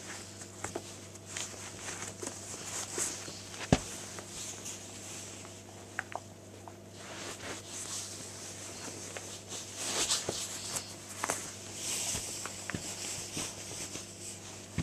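Rustling and light knocks as a pair of Air Jordan 7 Retro sneakers is pulled on and adjusted by hand, the shoes shuffling on carpet. There is one sharp click about four seconds in.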